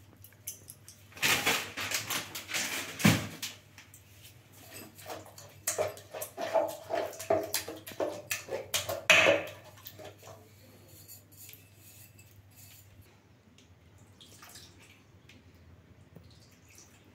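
A steel tumbler mashing and scraping a wet vegetable mixture in a nonstick pan, with metal clattering against the pan and wet squelching. It comes in two spells, one starting about a second in and another from about six to nine seconds, and then it goes mostly quiet.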